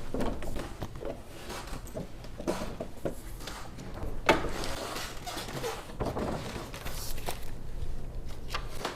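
Washington iron hand press being worked: scattered wooden and metal knocks, clunks and rubbing, with one sharp knock about four seconds in.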